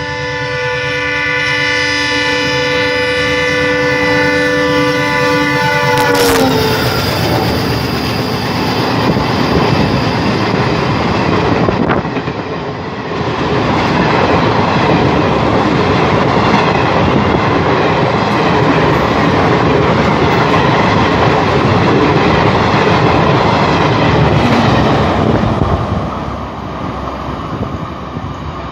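A WDM3A diesel locomotive's air horn blowing one long continuous blast, its chord dropping in pitch about six seconds in as the locomotive passes at full speed. Then the coaches rush past with steady wheel clatter over the rail joints, fading near the end.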